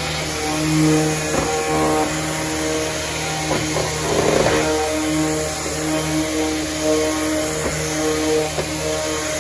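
Electric orbital pad sander running on primed paint, scuff-sanding a cabinet door between primer and finish coat. A steady motor hum that swells and fades slightly as the sander is moved across the door.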